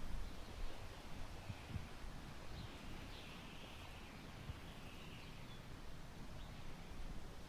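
Summer wind gusting through tall grass, buffeting the microphone with an uneven low rumble. A few faint bird chirps come through about three and five seconds in.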